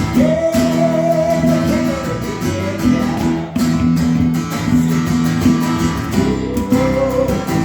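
Acoustic guitar strumming chords, with a long held melody note over it twice, once at the start and again near the end.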